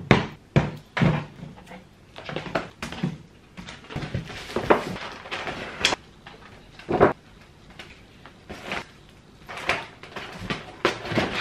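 Handling and packing noises as a jar and a loaf of bread are set on a table and put into a paper carrier bag: about a dozen irregular knocks and clunks with rustling of the paper bag.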